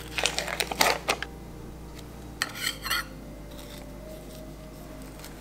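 Spoon and plastic cream cheese tub being handled: a quick run of clicks and scrapes in the first second, then another short burst of scraping and clinking about two and a half seconds in.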